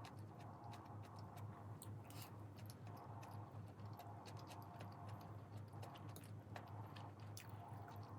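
Faint, scattered small clicks and taps, irregular, over a steady low hum.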